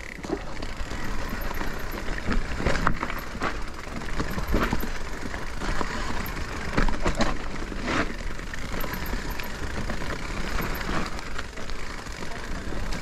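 Electric mountain bike riding over rough trail: steady tyre and rolling noise with frequent irregular knocks and rattles from the bike as it hits the ground.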